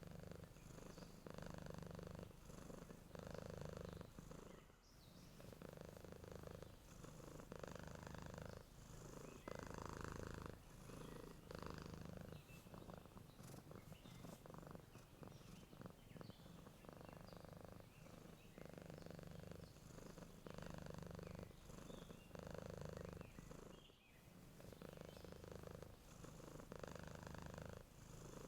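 Domestic cat purring steadily, close up, the purr swelling and easing with each breath in and out, about a second per breath.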